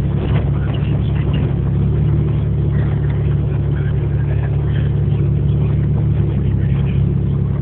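A vehicle engine running steadily, a loud, unbroken low drone with rumbling noise over it.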